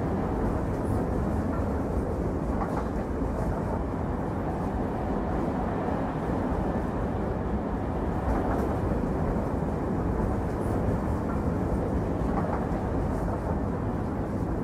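Steady rumbling noise of a train running along the line, with a few faint irregular clicks.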